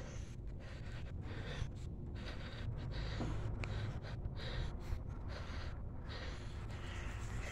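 Wind rumbling on a phone's microphone, with the heavy, uneven breathing of the person walking and filming: noisy breaths coming and going every second or so.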